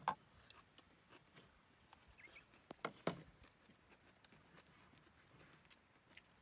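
A few light clicks and knocks of chopsticks and tableware against a bowl and plate, the loudest right at the start and two more about three seconds in, over quiet background.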